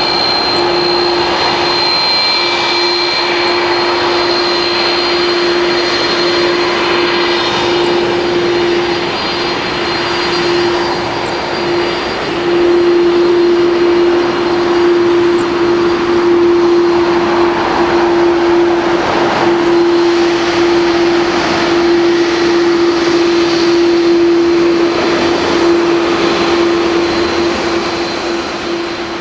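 Airbus A330's twin jet engines at taxi idle as the airliner taxis past close by. A steady whine over a rush of noise, growing louder about halfway through and fading near the end as it moves away.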